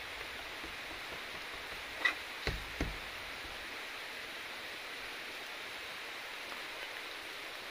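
Steady outdoor background hiss, broken about two seconds in by a short sharp click and then two dull knocks close together.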